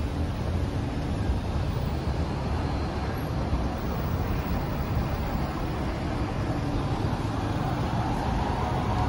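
Steady city traffic rumble of passing cars and buses, with a rising whine coming in near the end.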